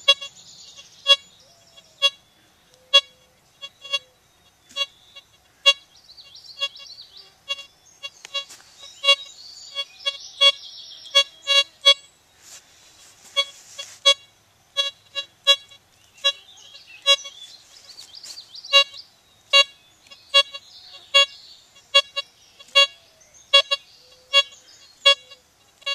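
Bliss Tool LTC64 pulse-induction metal detector giving short, sharp beeps, about one or two a second, as its coil is swept back and forth over a quarter buried 14 inches deep. A faint high chirping runs behind the beeps.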